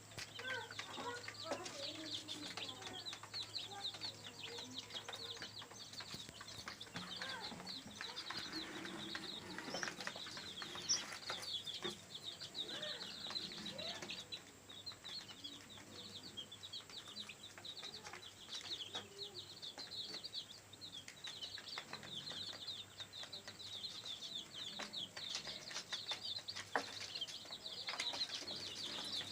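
A crowd of chicks peeping continuously, many short high-pitched cheeps overlapping, with a few scattered knocks.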